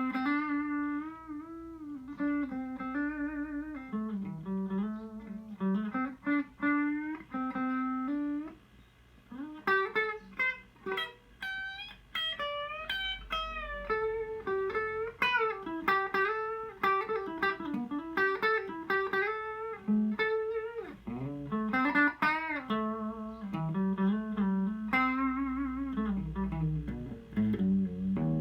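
Electric guitar played on a clean, undistorted tone: single-note melodic lines with wavering vibrato and bent notes, and some notes sounded together. There is a short pause about nine seconds in.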